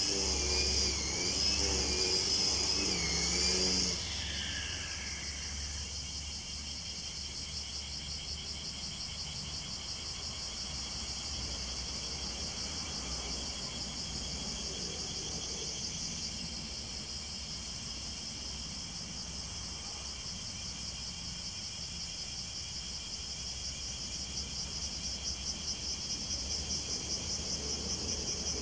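A small motor with a wavering whine runs and cuts off about four seconds in, its pitch falling as it spins down. Then insects keep up a steady, fast pulsing chirp that grows louder near the end.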